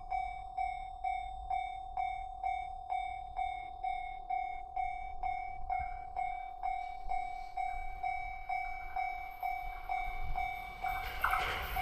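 Japanese level-crossing warning bell ringing, an electronic ding repeating about twice a second. Near the end the noise of the approaching E259 series Narita Express train rises under it.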